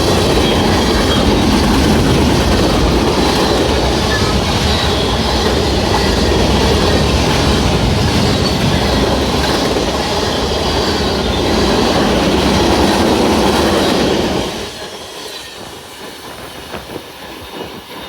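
Norfolk Southern mixed freight train's cars rolling past, a loud steady noise of steel wheels on rail. About fifteen seconds in, the end of the train passes and the noise drops off sharply to a faint remainder.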